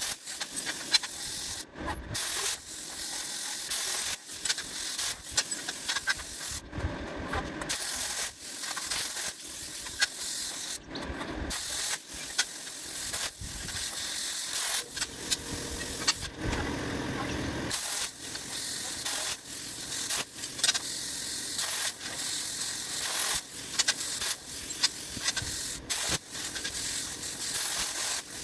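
Everlast PowerPlasma 62i plasma cutter cutting steel plate: a steady hiss of the arc and air, full of crackle, that drops away briefly several times as the torch stops and restarts. The sound is fast-forwarded.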